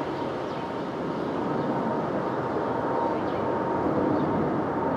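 Airbus A330-300 with Rolls-Royce Trent 700 turbofans on final approach, gear down: a steady jet rumble with a thin, even whine, growing louder as the airliner comes in overhead.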